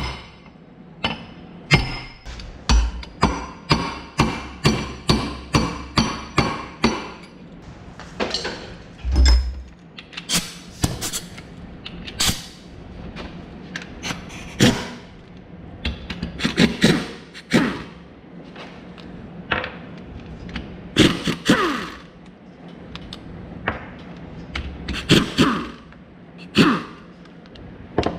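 Hand hammer striking a steel punch to drive a roll pin out of a mower drive-pod gear held in a bench vise. The first several seconds are a steady run of sharp metal-on-metal strikes, about two a second, with the part ringing after each, followed by more scattered knocks and clanks of steel tools.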